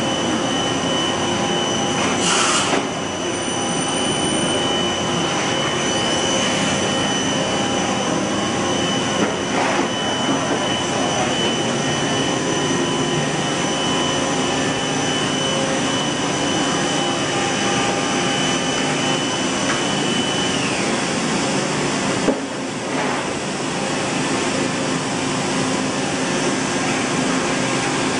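Steady whir and hum of a powered-up Mazak Integrex-200IV ST CNC turning center standing idle, with a thin high whine that slides down in pitch about twenty seconds in. There are a few brief knocks, at about two, nine and twenty-two seconds in.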